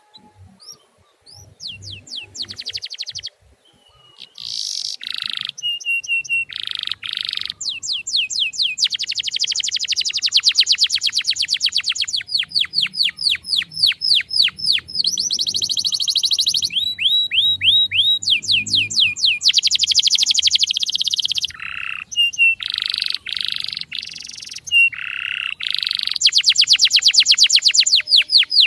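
Male canary singing: fast trills of repeated high chirps, about ten a second, strung into long phrases with short breaks between them.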